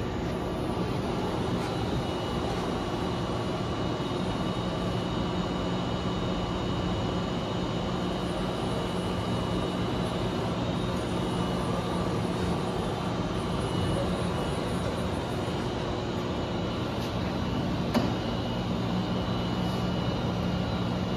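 Johnford DMC-1500H vertical machining center running powered up: a steady hum with a faint high whine, and a single sharp click near the end.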